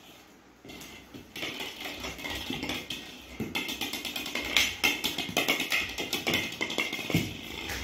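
Golden retriever puppy's claws clicking and scrabbling on a hard polished stone floor as it plays with a ball: a rapid, irregular patter, with a couple of duller thumps, one near the middle and one near the end.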